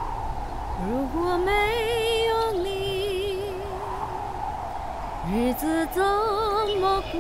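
A lone woman's voice singing slow, long-held notes with a wide vibrato, each phrase sliding up into its first note. She comes in about a second in, and a second phrase begins around five seconds, over steady background noise.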